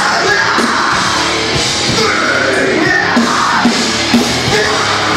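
Live rock band playing loud, amplified through a stage PA, with a singer's vocals over the band.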